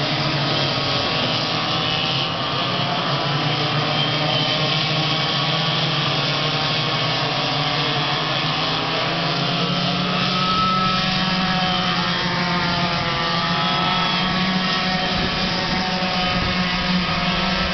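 Several racing go-kart engines running together at speed, a steady layered drone of engine tones that drift up and down in pitch as the karts go around the track.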